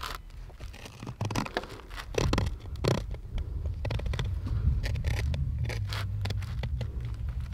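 Fillet knife scraping and cutting through a bass along its spine and ribs on a cardboard board, a string of short irregular scrapes and crackles with two louder strokes a few seconds in. A low rumble rises underneath about halfway through.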